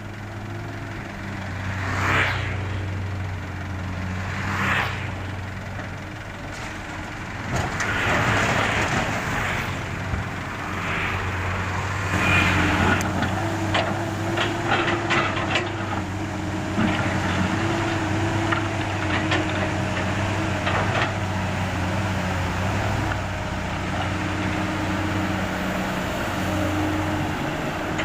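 Komatsu PC200 excavator's diesel engine running steadily under load, with scraping and clattering bursts several times as its bucket breaks up and shifts asphalt, busiest about halfway through.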